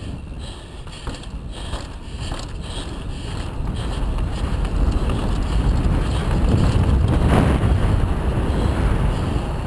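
Wind buffeting the microphone of a camera on a downhill bike, together with tyre noise on pavement. The sound grows louder from about halfway in, and there are a few knocks from bumps in the first seconds.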